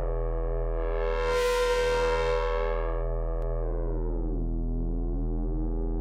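Parawave Rapid granular software synthesizer playing a held note on a dirty bass preset. The tone brightens sharply about a second in, then the pitch slides down around four seconds in and glides back up near the end.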